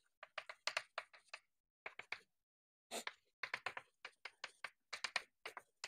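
Chalk tapping and scratching on a blackboard in quick, irregular strokes, sped up, with silence between the strokes.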